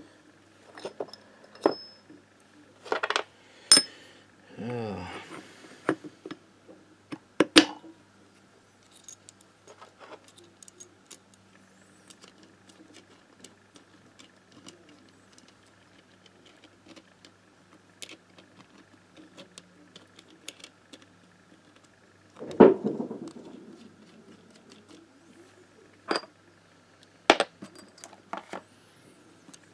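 Metal gearbox parts and tools clinking and knocking against each other and the crankcase as a moped's AM6 engine is reassembled by hand. Scattered clinks, several in the first few seconds, a louder clatter past the middle and a few more near the end.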